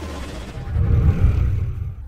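Deep rumbling whoosh from an animated intro's sound effects, swelling about a second in and dropping away at the end.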